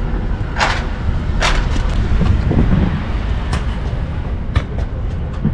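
Steady low rumble of a moving vehicle, with two short hissing bursts in the first two seconds and a few light clicks later on.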